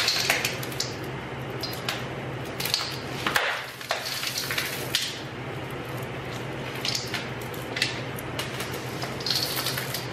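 Spatula scraping and folding thick cookie dough full of M&M candies in a stainless steel mixing bowl: irregular scrapes and squishes with small clicks, easing off briefly about three and a half seconds in.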